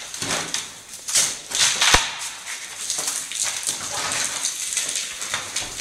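Rubble and debris clattering, with irregular knocks and scrapes and one sharp knock about two seconds in, as on a demolition site.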